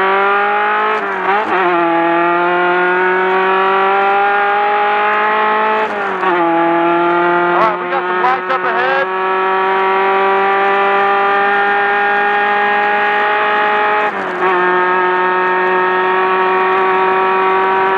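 Class 10 desert race buggy engine under full throttle, pulling up through the gears: the pitch climbs, then drops sharply at three upshifts, about a second in, about six seconds in and about fourteen seconds in. A short run of knocks and rattles comes near the middle.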